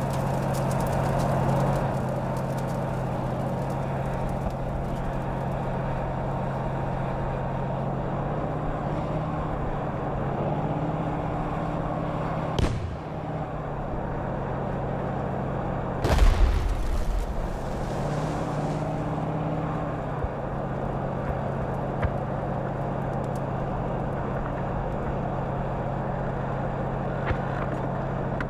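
T-72 tank's engine running with a steady low hum, its pitch rising briefly twice. A sharp blast comes about 12 seconds in, then a louder one with a deep boom about 16 seconds in, the loudest sounds here: gunfire and shell bursts.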